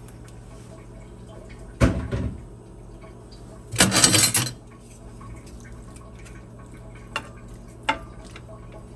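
Kitchenware clattering: two loud bursts of dishes and utensils being handled about two and four seconds in, then two light knocks near the end as a wooden spoon works raw chicken in a metal skillet. A steady low hum runs underneath.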